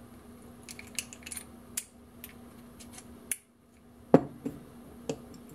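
Small metal clicks and scrapes of a steel pick working inside a 3/4-inch ratchet head to pry out its top piece, then a single louder metal clunk with a short ring a little after four seconds in, followed by a few light clicks.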